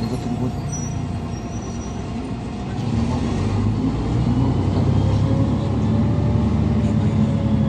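GolAZ-5225 city bus heard from inside the passenger cabin: the engine idles at a stop, then gets louder about three seconds in as the bus pulls away and accelerates, with a whine from the drivetrain.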